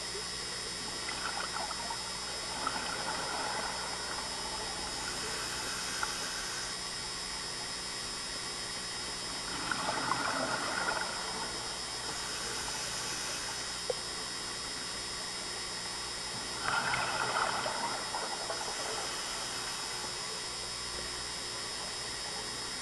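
Scuba diver breathing through a regulator underwater, over a steady hiss. Exhaled bubbles gurgle three times, about every seven seconds, with a fainter hiss of inhalation between them.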